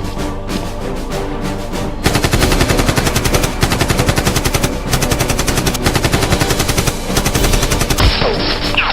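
Rapid automatic machine-gun fire sound effects laid over action music, the firing starting about two seconds in.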